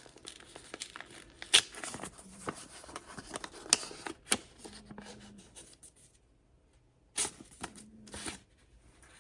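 Paper and plastic packaging being torn open and rustled by hand as planner stickers and cards are taken out, in irregular sharp crinkles with a brief lull after the middle.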